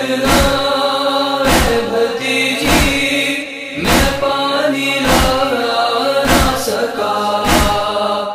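Noha, an Urdu mourning chant: a chorus of voices holds chanted notes between the sung lines, over a steady beat of thumps about once a second.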